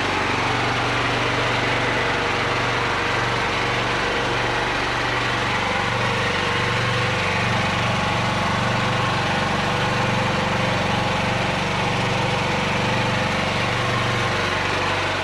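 Harbor Freight Predator 8750 inverter generator running steadily, a constant engine drone with a low hum.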